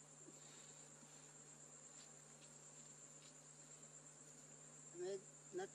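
Faint steady high-pitched insect trilling in forest ambience, with a few short voice-like pitched calls near the end.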